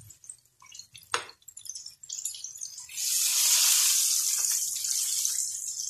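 Hot oil sizzling and crackling around breaded chicken pieces frying in a pan as they are turned with metal tongs, with a sharp click about a second in. The sizzle swells loud and steady about three seconds in.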